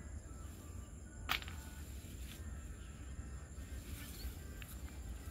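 One sharp knock about a second in as the base of a railway signboard post is dug out, over a steady low wind rumble on the microphone and a thin steady high whine.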